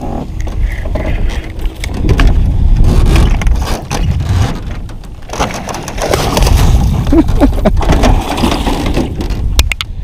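Heavy wind rumble buffeting the microphone, with scattered knocks and clatter as a hooked bass is fought and netted beside a small aluminum boat.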